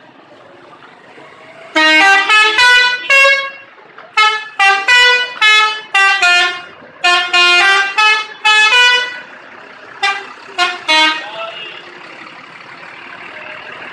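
Telolet bus horn, a multi-trumpet musical air horn, playing several quick runs of short notes at changing pitches, a tune of separate honks. It stops about eleven seconds in, and a steady background noise remains.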